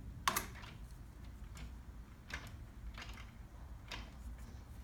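Light clicks and ticks of a stirring stick against the sides of a small plastic cup as two-part epoxy is mixed, about five scattered clicks with the sharpest just after the start, over a low room hum.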